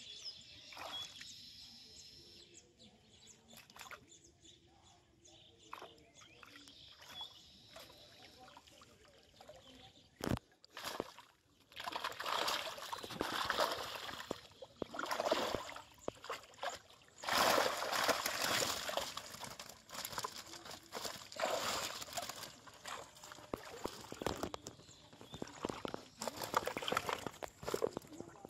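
Water splashing and sloshing as large rohu and catla thrash in a cast net being hauled from a pond's edge. It is fairly quiet at first, with a single sharp knock about ten seconds in, and heavy irregular splashing starts a little after that.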